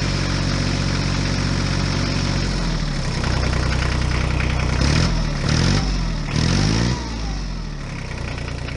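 Heavy machinery diesel engine idling, then revved up and back down about three times in quick succession past the middle before settling to idle again.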